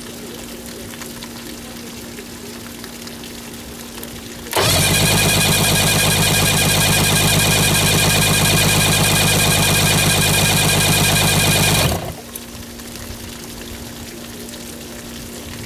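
1976 Mercury inline-six outboard turned over on its electric starter with the spark plugs out: a loud, even cranking whir that starts suddenly about four and a half seconds in, holds steady for about seven seconds, then stops. A faint steady hum runs before and after.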